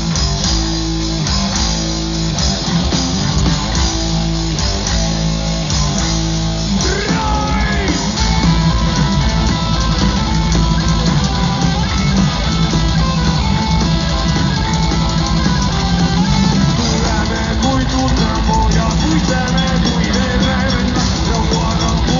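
Heavy metal band playing live: distorted electric guitars, bass guitar and drum kit. A repeated riff for about the first seven seconds, then a fuller, busier section with the whole band.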